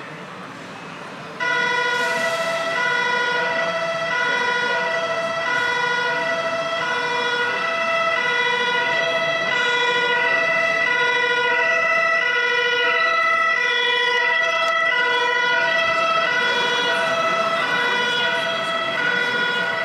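Sound module of a radio-controlled MAN fire-engine model playing a German two-tone fire-brigade siren ("tatütata") that alternates between two pitches. It switches on suddenly about a second and a half in and keeps going, with a steady high tone beneath it.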